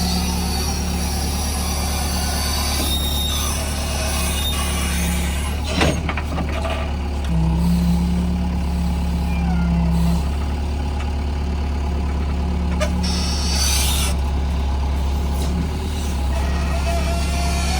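JCB 3DX backhoe loader's four-cylinder diesel engine running steadily while the machine works. It gives a sharp clank about six seconds in and rises in pitch and loudness for a few seconds as it takes load. A brief hiss comes later.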